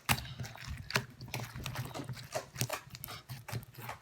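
Foam beads and slime being handled by hand, making quick, irregular crackling clicks and small pops.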